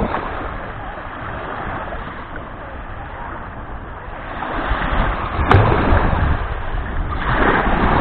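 Small sea waves lapping and washing onto a sandy shore, swelling louder in the second half, with a sharp click about five and a half seconds in.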